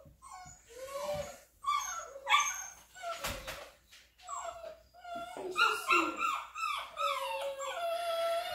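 Young Cane Corso puppies whining and crying in a run of high, wavering cries, louder around two seconds in and again near six seconds. A short knock sounds just past three seconds.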